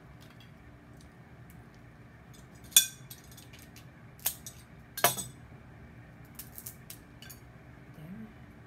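Metal crab cracker snapping crab shell: a few sharp cracks, the loudest about three seconds in, two more a little over four and five seconds in, then several lighter clicks.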